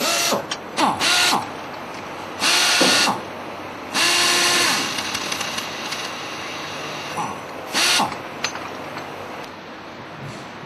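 RAD 2000 pneumatic torque multiplier running in several short bursts of air-motor whine and exhaust hiss, the whine falling in pitch at the end of some bursts, as it retorques wheel nuts.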